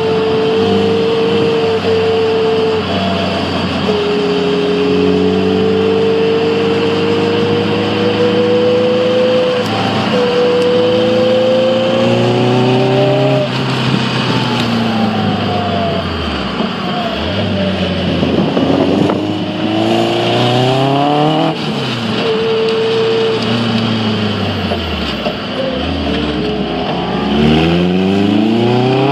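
Caterham R300's four-cylinder engine under hard driving, heard from the open cockpit. It holds high revs and then rises sharply through the gears in several pulls, with the revs falling away in between as the car brakes and downshifts. Wind and road noise run underneath.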